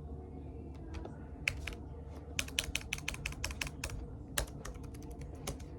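Typing on a Chromebook keyboard: scattered keystrokes, then a quick run of key clicks about halfway through, tailing off into a few more.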